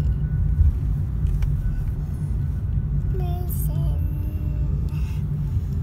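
Steady low rumble of a car's cabin on the move: engine and road noise heard from inside the car.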